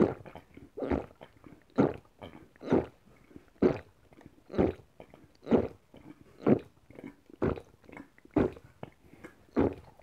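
A person gulping a drink from a plastic bottle close to the microphone: loud swallows in a steady rhythm, about one a second, with quiet between.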